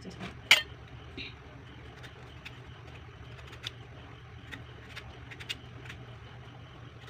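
Knife peeling the skin off a green mango held in the hand: a sharp click about half a second in, then light, scattered ticks and scrapes of the blade over a low steady hum.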